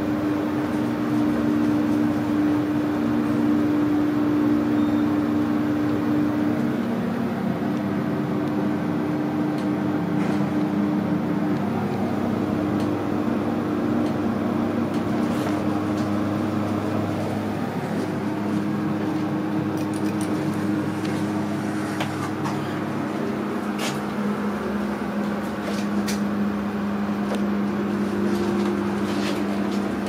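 Slow roped hydraulic lift travelling, heard from inside the car: a steady low hum with two held tones from the hydraulic power unit running. A few faint clicks in the second half.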